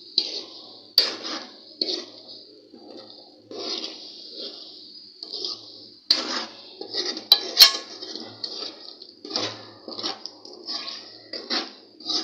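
A spoon stirring and scraping chicken around a metal pot, with repeated sharp clinks against the pot, over the steady hiss of the chicken frying in oil and cream.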